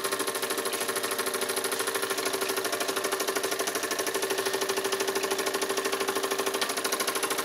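Mamod SE2 single-cylinder toy steam engine running steadily with a rapid, even exhaust beat, its exhaust choke closed down to run it as slowly as it will go.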